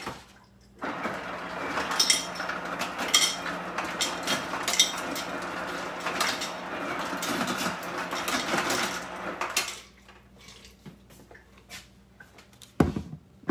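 Ice cubes rattling and clattering together for about nine seconds, then a single sharp thump near the end.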